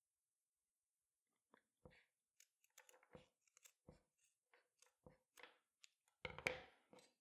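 Scissors snipping through black webbing in a string of short cuts, with a louder, longer crunch of cutting or handling near the end.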